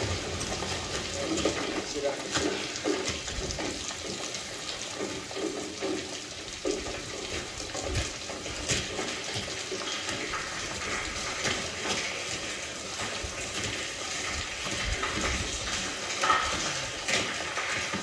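War-film soundtrack played through a Klipsch Reference Premiere 5.2.4 home-theater system and picked up by a phone's microphone: a steady hiss of rain, with scattered low thumps and faint murmurs.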